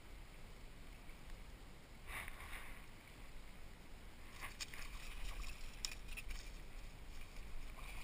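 Faint rustling of grass and handling noises as a small bass and its lure are handled by hand, with a few short scrapes about two seconds in and between four and a half and six seconds in, over a low steady rumble.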